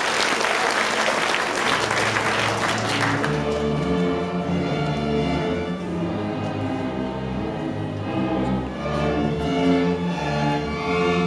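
Audience applause dying away about three seconds in as a student string orchestra of violins and cellos starts playing: low held notes come in under the applause, then the full ensemble plays a moving, rhythmic passage.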